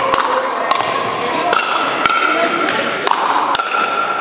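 Pickleball paddles striking a plastic perforated ball in a quick volley exchange: a series of sharp pops about every half second to second, echoing in a large gymnasium.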